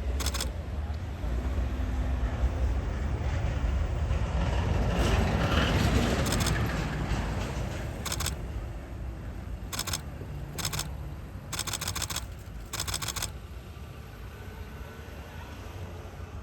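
Camera shutters firing in short rapid bursts, several times, over the low rumble of a passing vehicle that swells and fades about a third of the way in.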